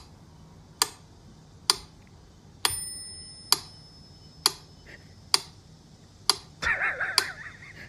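Sharp ticks about once a second, evenly spaced like a clock, one of them ringing on like a small bell. Near the end comes a wavering, warbling sound.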